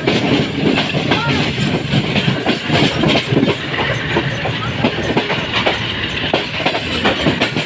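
Pak Business Express passenger coaches running along the track, their wheels clicking and clacking rapidly and irregularly over the rail joints, over a steady rumble.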